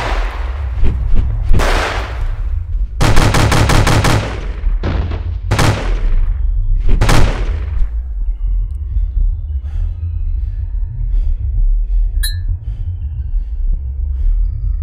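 Animated-film sound effects: a series of loud gunshot-like blasts over a deep, steady rumble, with one rapid rattling burst like machine-gun fire. After about eight seconds the blasts stop and quieter music with soft hits takes over.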